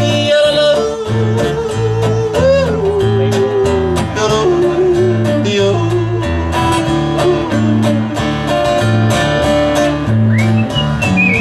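Live country band music: acoustic guitar and electric bass play an instrumental break, with a sliding lead melody over a steady bass line. About ten seconds in, a whistled melody comes in high above the guitars.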